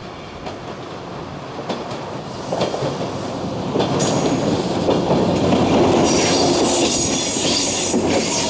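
JR 103 series electric train's wheels clacking over rail joints, getting louder as it comes close. From about six seconds in, a high wheel squeal joins the rolling noise as the cars pass close by.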